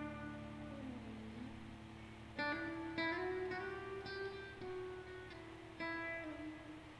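Quiet soundtrack music of plucked guitar: notes are struck and left to ring and fade. New notes come in about two and a half seconds in, again at three seconds, and once more near six seconds.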